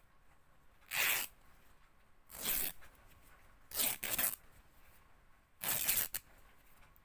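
Fabric being ripped in four short tears about a second and a half apart, the third broken into two quick pulls.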